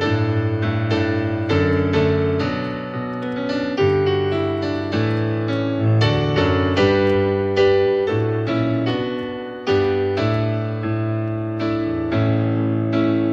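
Piano playing chords under a melody. The notes are struck and left to fade, with a new note or chord about every half second.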